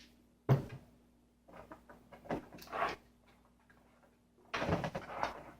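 Small hardware being handled during hand assembly: a sharp knock about half a second in, a run of light clicks, then a longer scraping, rattling stretch near the end, as the screws and nuts fastening a printer panel are worked by hand.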